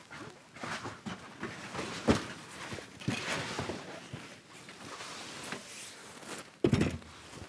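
Footsteps, rustling and handling knocks as a person moves about inside a canvas tent on a wooden floor, with a sharp knock about two seconds in and a louder thump near the end.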